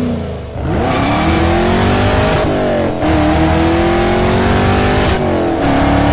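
Car engine sound effect accelerating hard through the gears. The pitch climbs steadily, drops at an upshift about two and a half seconds in and again about five seconds in, then climbs again.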